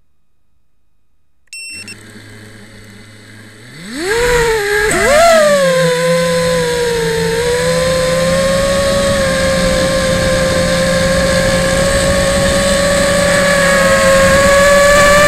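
A small racing quadcopter's brushless motors and propellers: after a short beep the motors spin slowly with a low hum, then about four seconds in they throttle up in a sharply rising whine as it lifts off. The whine then holds steady in flight, creeping slightly higher in pitch near the end.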